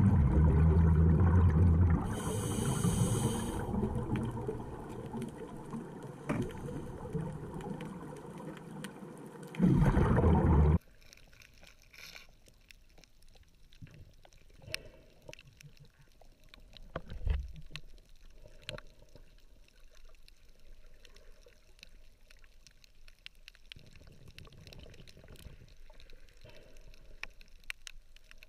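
Underwater sound of scuba exhaust bubbles, a loud rushing and gurgling that cuts off suddenly about eleven seconds in. After that comes quieter water noise with scattered faint clicks and a few low bubbly rumbles.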